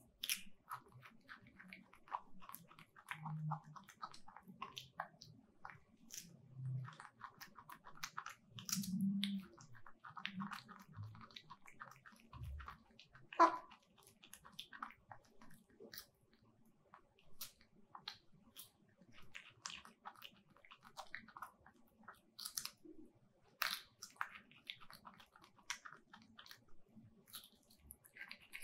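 Young macaque biting and chewing raw broccoli: small, irregular wet crunches and crackles close to the microphone, with one sharper, louder crunch about halfway through.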